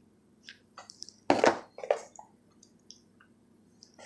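Baseball cards in plastic sleeves being handled and set down: a few short rustles and taps, the loudest about a second and a half in.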